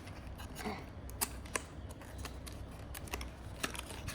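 Irregular light clicks and taps from hands handling a boxed model bus and its plastic packaging, about a dozen sharp ticks spread over a few seconds.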